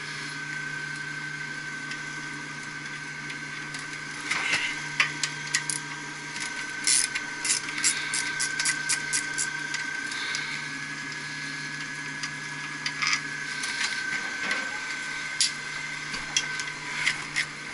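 Irregular clicks and metallic knocks of hand tools being worked on a pump motor, coming in clusters, over a steady mechanical hum of running equipment.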